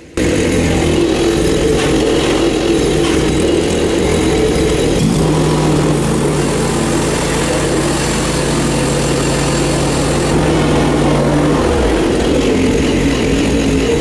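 Hud-son portable band sawmill's Predator gasoline engine running steadily. A steady low hum joins about five seconds in and drops out near the end.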